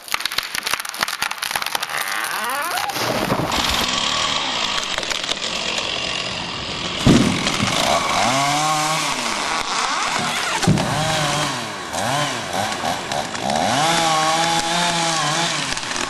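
Gasoline chainsaw running and cutting, revving up and falling back again and again, so its pitch rises and drops several times.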